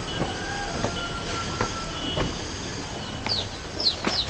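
Steady outdoor hiss with a few soft knocks of footsteps on a stone path. From about three seconds in, a run of short, high, falling peeps starts, typical of chicks, repeating about twice a second.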